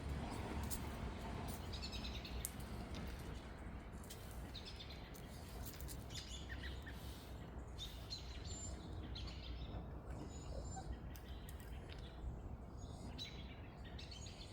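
Birds chirping faintly now and then, short high notes scattered through, over a steady low outdoor rumble.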